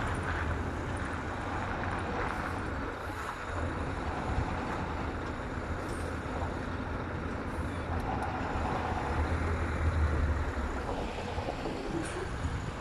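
Heavy vehicle engine running steadily with a low rumble that swells briefly about ten seconds in.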